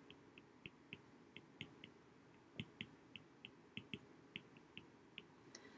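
Faint, irregular clicks of a stylus tip tapping on a tablet's glass screen while handwriting, about three a second.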